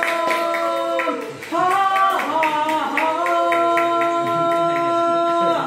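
A man singing a long held closing note, with a sliding run in the middle, then holding it again until it cuts off suddenly near the end. Hand clapping keeps time at about four claps a second during the first second.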